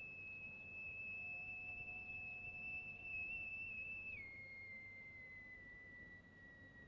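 A high, pure whistle-like tone, held steady for about four seconds and then dropping to a lower note that slowly sinks in pitch.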